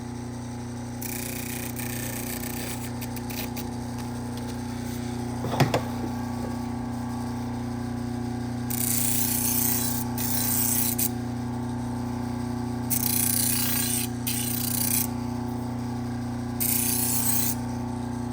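Motor-driven leather stropping wheel running with a steady hum, with several bursts of high rubbing hiss as the knife edge is honed on it with green compound to take off the last of the wire edge. A single sharp knock about five and a half seconds in.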